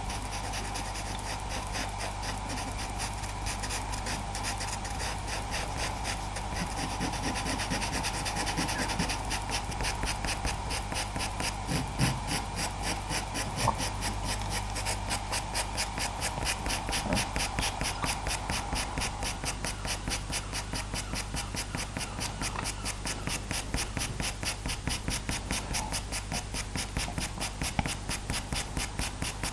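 Faber-Castell Pitt pastel pencil scratching across Pastelmat paper in short, quick, repeated strokes, several a second, laying down a base layer of fur.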